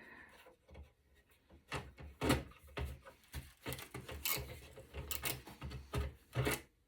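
Irregular clicks, taps and light scrapes of a screwdriver working on screws in a metal server chassis, the loudest knocks about two seconds in and near the end.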